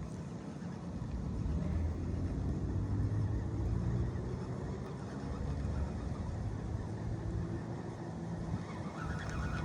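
Low engine hum that swells a couple of seconds in and then eases off, with wind noise underneath.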